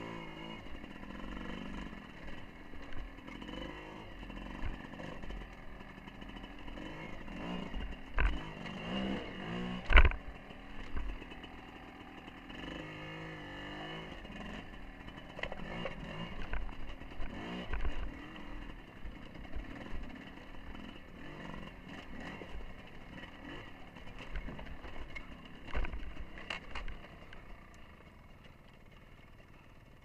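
Dirt bike engine running at low revs, its pitch wavering up and down with the throttle, while the bike clunks and rattles over rocks on a steep descent; a loud knock about ten seconds in, and the sound drops away near the end.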